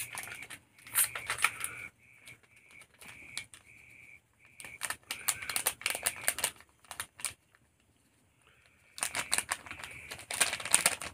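Plastic spice packet crinkling and rustling in three bursts of quick, crackly strokes as chilli powder is shaken out of it onto chicken in a steel bowl.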